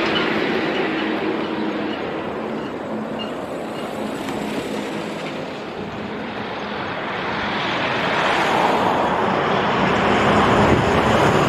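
Trucks passing on a highway: the roar of one going by eases off, then grows louder again over the last few seconds as another heavy truck approaches.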